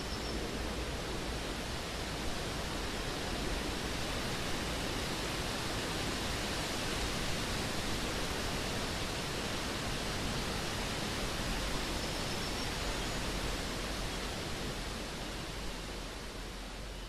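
Steady, even rushing noise with no distinct events, starting to fade out near the end.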